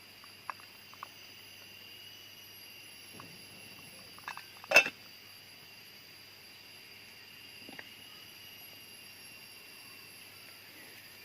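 Steady high-pitched drone of jungle insects, with a few short clicks near the start and one sharp knock a little before halfway.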